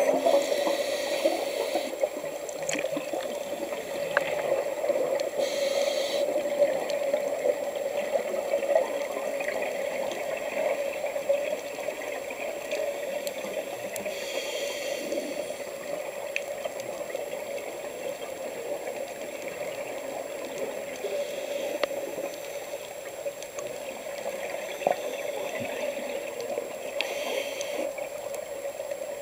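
Underwater sound through a camera housing: a scuba diver's exhaled bubbles rush up in bubbly bursts every several seconds over a steady crackling background.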